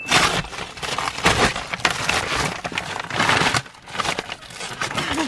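Brown paper mailing bag crinkling and rustling as it is handled and opened, in a dense run of rough crackles that thins out near the end.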